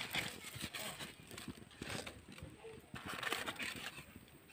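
Small fire of dry twigs and dead leaves crackling around a green bamboo cooking tube, with irregular small snaps and pops.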